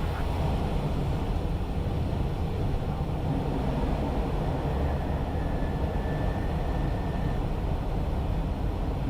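Steady cockpit noise of an Airbus A320 on approach, a low rumble of airflow and engines. A faint thin tone sounds for about two seconds around the middle.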